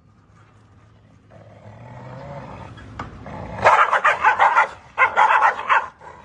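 Two dogs squaring off: a low growl builds for a couple of seconds, then breaks into loud, rapid snarling and barking in two fast runs, with one more snarl at the very end.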